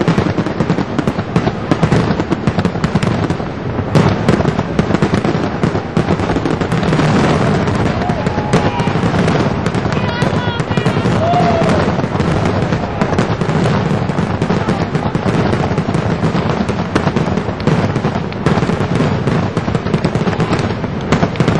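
Fireworks grand finale: a dense, continuous barrage of overlapping bangs and crackles with no pause between them.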